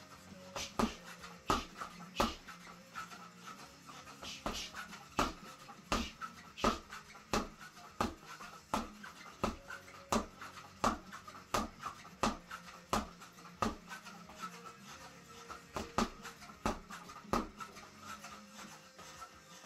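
Boxing gloves punching a homemade spring-mounted reflex bag, a sharp smack about every 0.7 seconds, stopping near the end. Faint music underneath.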